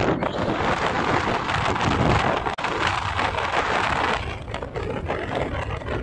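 Wind rushing over the microphone on a moving motorcycle, with the bike's engine and road noise underneath. The rush eases about four seconds in.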